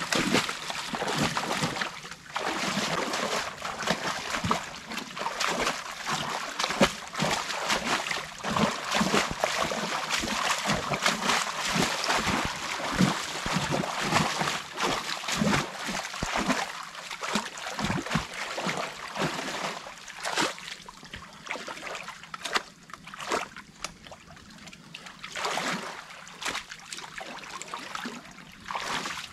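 Water splashing and sloshing irregularly as sticks and mud are pulled from a beaver dam, with water trickling through. The splashing thins out with quieter gaps in the last third.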